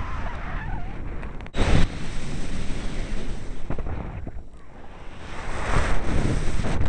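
Wind rushing and buffeting over the camera's microphone in flight under a paraglider, with a loud gust about a second and a half in and another building near the end.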